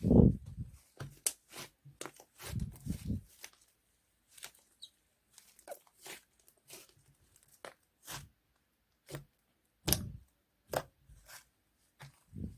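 Slime being worked by hand: an irregular run of sticky pops and clicks, with a few heavier squishes, one right at the start and one about ten seconds in.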